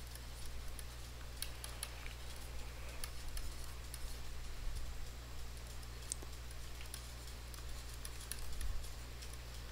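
Faint, scattered light clicks and taps of a stylus on a pen tablet during handwriting, over a low steady electrical hum.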